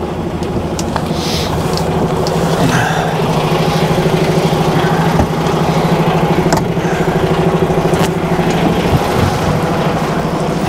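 Diesel engine of a DAF truck idling with a steady, even pulse, heard from inside the cab, with a few light clicks.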